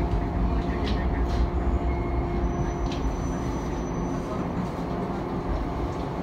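Bantan Line local train running along the track, heard from inside the car: a steady low rumble with a faint steady hum and a few light clicks.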